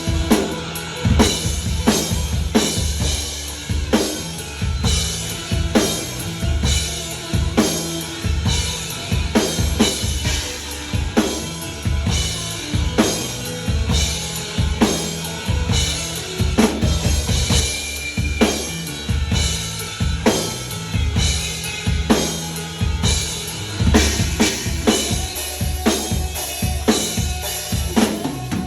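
Acoustic drum kit played in a steady rock beat, with kick drum, snare and cymbal strikes, along with the song's backing track.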